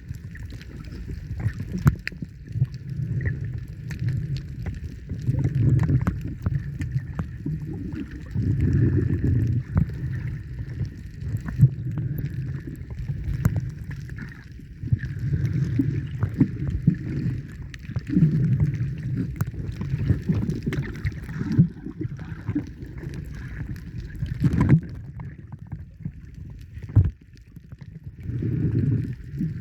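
Muffled water sounds: low sloshing and gurgling that swells in irregular surges every second or two, with scattered sharp clicks.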